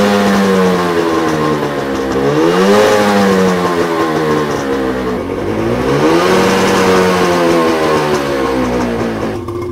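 1992 Johnson 48 HP two-stroke outboard engine running and being revved, its pitch falling and rising in about three slow swings, then dropping near the end. The owner says it is not quite running right and needs running in to clear up.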